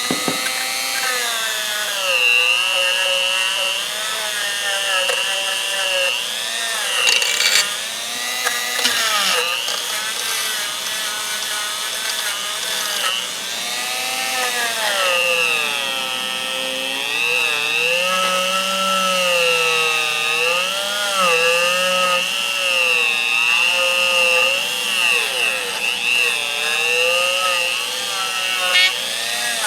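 A small high-speed power tool running without a break, its whine dipping and rising in pitch as it is pressed against the steel pliers to grind off rust.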